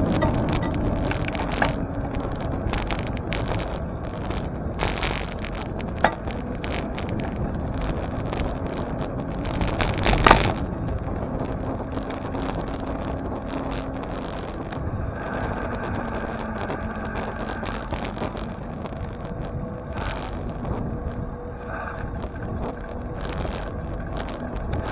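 Riding a bicycle through city streets: steady wind and road noise on the microphone, with passing traffic and a few sharp knocks, the loudest about ten seconds in.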